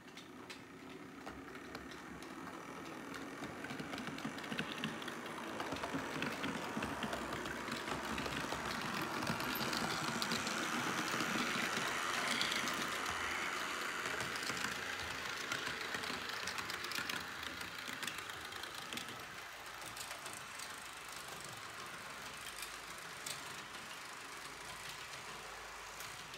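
Model electric train, a BLS RBDe 4/4 multiple unit, running along the track, its motor and wheels giving a steady rolling rumble with many small clicks. It grows louder towards the middle as the train comes close, then fades as it moves away.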